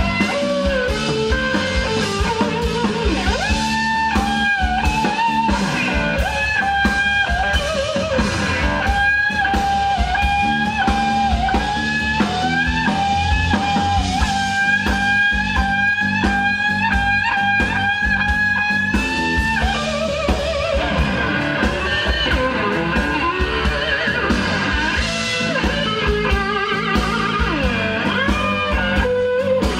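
Live blues-rock with an electric slide guitar lead, played overhand with a slide across the strings. From about four seconds in it hammers on one high held note again and again, sliding up into it each time, then near twenty seconds in it glides down into lower sliding runs.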